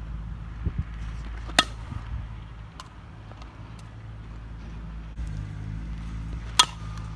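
Softball bat hitting a tossed softball twice, about five seconds apart, each a sharp crack with a short ring, over a steady low hum.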